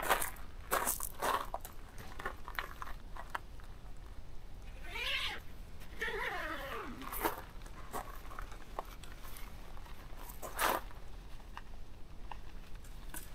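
Footsteps crunching on gravel and handling noise while a tent is pitched, with scattered clicks. In the middle, a squeal glides down in pitch twice, and a sharp crack comes near the end.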